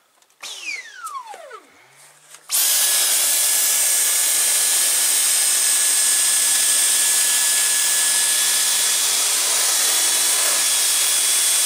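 A short falling whine, then about two and a half seconds in the Dyson V10 cordless stick vacuum switches on and runs steadily: a loud rush of air with a high whine on top, its mini motorised tool working on fabric couch cushions.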